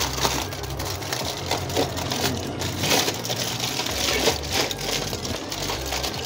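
Aluminium foil being crinkled and peeled open by hand, an uneven run of crackling rustles.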